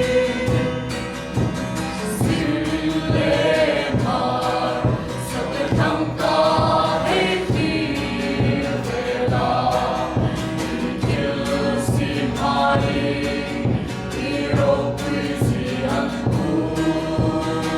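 A church worship team singing a gospel worship song together over a steady accompanying beat.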